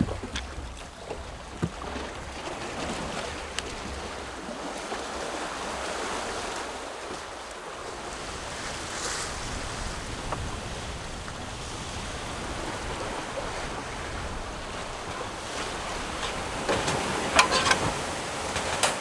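Wind and sea water rushing past a sailing catamaran running slowly under spinnaker, with wind buffeting the microphone as a low rumble. Near the end, a few sharp clicks of a utensil against a pan.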